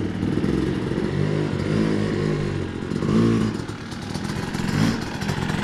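Dirt bike engines running at low speed over rocky ground, the revs rising and falling as the throttle is worked, with short surges about three seconds in and again near the end.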